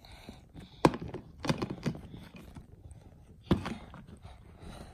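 Knocks and taps of a small child's hands patting and pressing Play-Doh down on a plastic tray, with two sharp, louder knocks about a second in and past halfway and a run of lighter taps between them.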